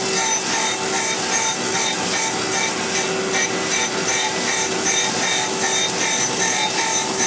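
Wasino Meister V3 CNC surface grinder's wheel grinding a hardened S7 tool-steel punch under coolant as the table strokes back and forth, taking 2.5 tenths per pass. A steady machine hum with a rasping grind that swells and fades a few times a second with the strokes.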